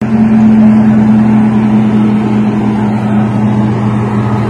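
Narrow-gauge diesel locomotive running as it pulls its train slowly past, a loud, steady engine drone.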